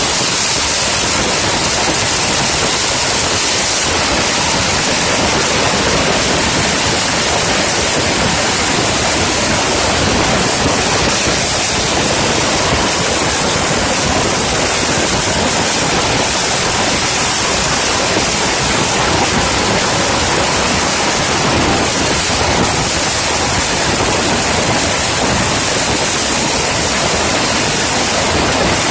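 Helicopter flying, heard from inside the cabin: a loud, steady, even noise from the engines and rotor that does not change.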